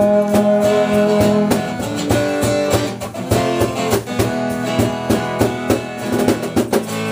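Live band music with strummed acoustic guitar, the singer holding the end of a line about a second and a half in, then the instruments playing on between verse and chorus.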